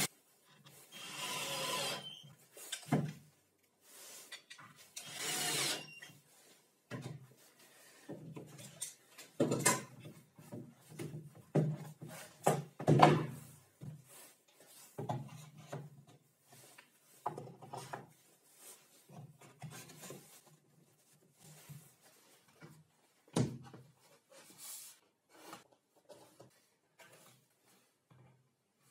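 Plywood boards and wooden blocks being handled on a table saw's plywood top: intermittent sliding, rubbing and clattering, with a few sharp wooden knocks.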